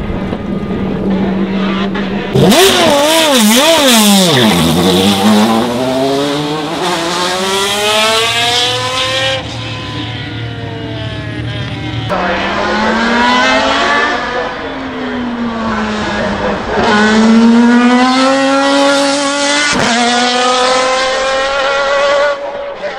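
BMW V12 LMR's V12 racing engine revving in quick blips, then accelerating hard with the pitch rising through the gears, each upshift dropping it sharply before it climbs again.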